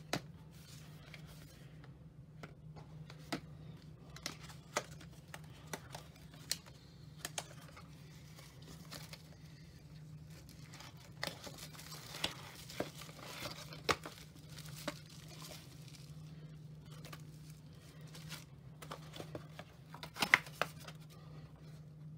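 Cardboard calculator box, paper inserts and a plastic bag being handled and opened: rustling and crinkling with scattered sharp clicks, a few louder clicks near the end, over a steady low hum.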